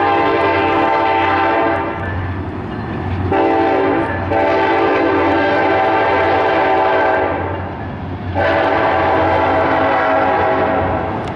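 Ferromex SD70ACe locomotive's raised-letter Nathan K5LLA five-chime air horn sounding four blasts: long, short, long, and a last long one running on past the end, over the low rumble of the passing diesel locomotive.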